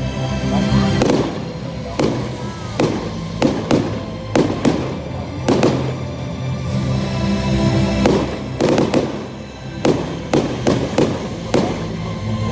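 Fireworks display going off, a rapid irregular series of bangs and bursts, with music playing under it.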